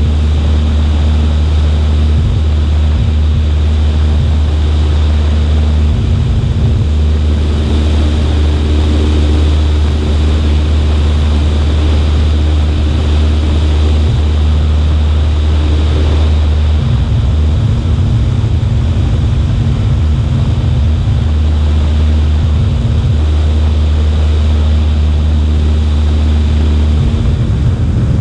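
Cessna 140A in flight: its engine and propeller drone steadily, with wind buffeting the wing-mounted microphone in bouts, about six seconds in, for several seconds past the middle, and again near the end.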